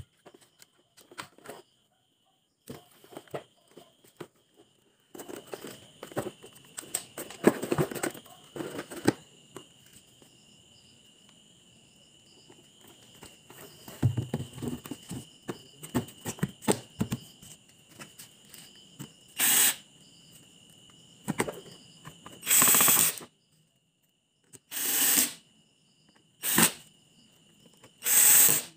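Subwoofer being reassembled by hand: scattered clicks, knocks and rattles of parts and screws, then five short, loud noisy bursts in the last ten seconds, over a faint steady high-pitched whine.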